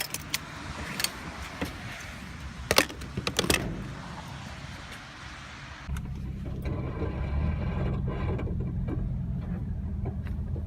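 Low engine and road rumble heard from inside a car cabin, growing louder about six seconds in as the car picks up speed. A few sharp clicks and knocks of cabin handling sound in the first few seconds.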